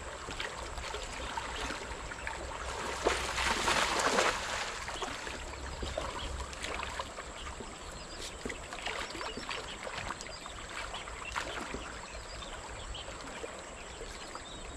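A cast net splashes down onto the river about three seconds in, the loudest sound here. Afterwards water trickles and sloshes with small scattered clicks as the wading fisherman draws the net back in by its rope.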